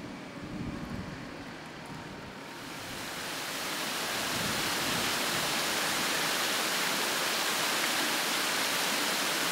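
Water cascading over the rocks of a garden waterfall, a steady hiss that swells in about three seconds in and holds level, over a faint low rumble at the start.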